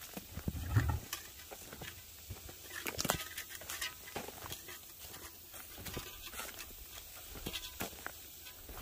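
Footsteps crunching irregularly on dry dirt, twigs and scattered debris as someone walks, with a low thump on the microphone about a second in.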